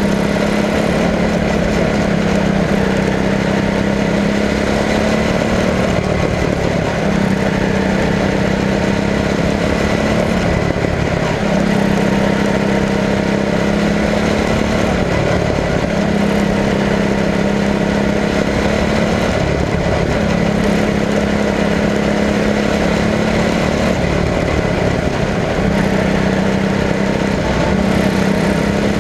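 Quarter midget race car's small engine running at racing speed, heard close from on board with wind noise. The engine note dips briefly about every four to five seconds, once a lap, as the throttle eases through the turns.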